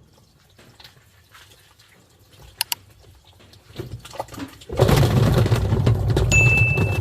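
Twin-tub washing machine's wash tub starting up: a few faint clicks and two sharp clicks, then about two-thirds of the way in the motor comes on with a loud low hum and churning water. A thin steady high tone joins near the end.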